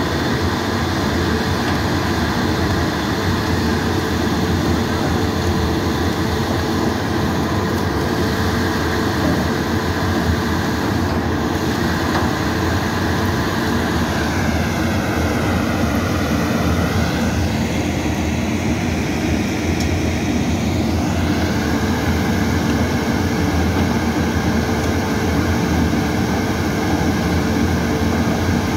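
Dual-shaft shredder, driven by two electric motors through gearboxes, running steadily and loudly while hard paper core tubes are fed in and shredded.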